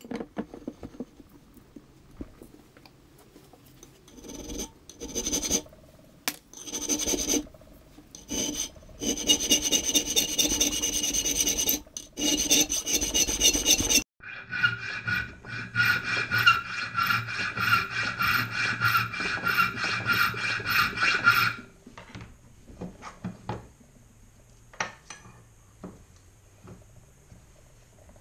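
Hand file worked back and forth across a small metal part clamped in a bench vise: a long run of rasping strokes that stops about three quarters of the way through, leaving a few faint scrapes.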